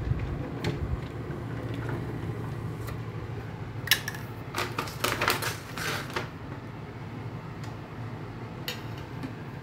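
A sliding window clicking and rattling as it is slid shut and latched, with a sharp click about four seconds in and a cluster of short rattles just after, over a steady low hum.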